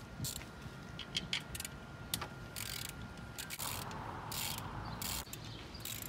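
Hand socket ratchet clicking in short runs as the bolts holding the intercooler are undone.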